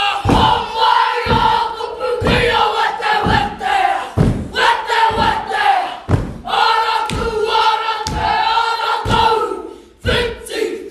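A group of boys chanting a haka in unison, the words shouted in rhythm. A heavy thump of stamping feet and slapping hands lands about once a second.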